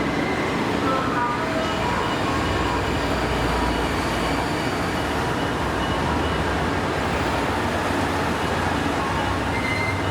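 Train running on the rails, a steady, loud rush of wheel and running noise with a few short faint squeals.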